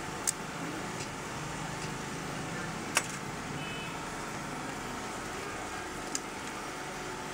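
Three short, sharp plastic clicks as a Kyocera copier's multipurpose (MP) tray feed assembly is handled and probed with a small tool, over a steady background hum.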